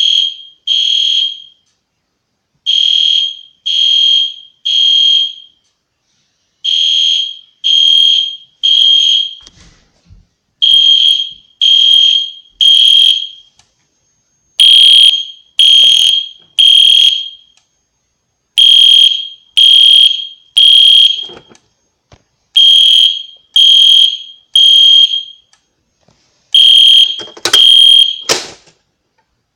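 EST Genesis ceiling-mount horn strobe sounding the temporal-3 evacuation pattern: three loud beeps, a pause, then three more, over and over. It stops near the end.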